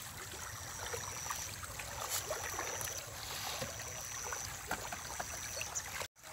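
Stinging catfish (deshi shing) feeding at the pond surface, making many small irregular splashes and plops as they take floating feed pellets, over a steady outdoor water hiss. The sound cuts out briefly near the end.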